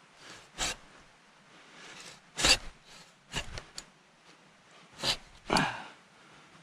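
Irregular knocks and thuds of wood being handled, about six in all, the loudest two and a half seconds in and another pair near the end.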